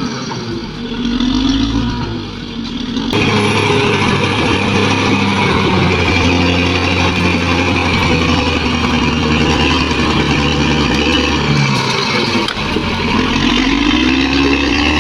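Bulldozer's diesel engine working, its pitch rising and falling as it is throttled up and down, with an abrupt change in the sound about three seconds in.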